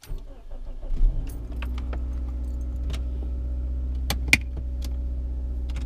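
Car engine started with the ignition key: it turns over briefly, catches about a second in, then idles steadily. A few sharp clicks come a little past the middle.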